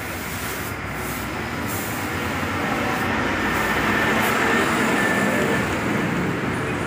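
Road traffic noise: a vehicle passing, a steady rushing rumble that grows to its loudest a little past the middle and then eases off.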